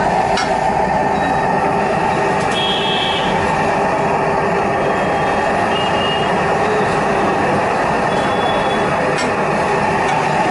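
Busy street din: a steady rumble of traffic around a roadside food stall, with short high beeps now and then, the loudest about two and a half seconds in, and a few sharp clicks.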